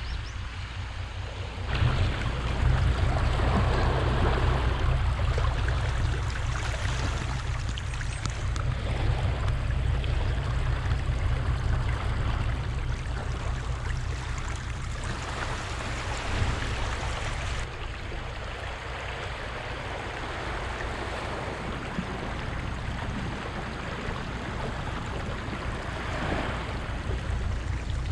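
Small sea waves washing onto the shore, swelling and easing every few seconds, with wind rumbling on the microphone.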